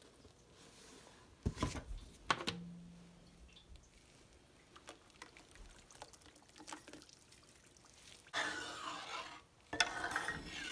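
Baking soda handled in a steel measuring cup with a couple of sharp knocks, then tipped into a pan of water; near the end, louder sloshing and splashing of the water as a gloved hand stirs it.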